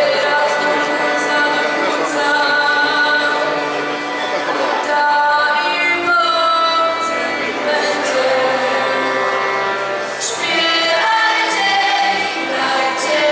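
Choir singing a Christmas carol, female voices to the fore, in long held notes.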